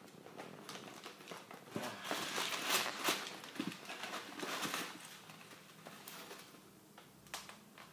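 Crumpled newspaper packing and wrapping rustling and crinkling as hands pull it out of a cardboard shipping box. It is busiest and loudest in the first half, then thins to occasional rustles.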